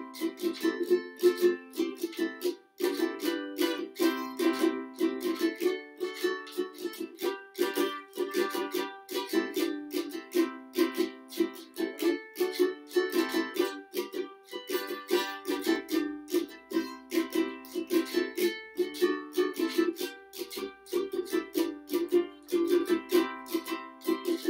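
Solo ukulele strummed in a steady rhythm of chords, with no singing.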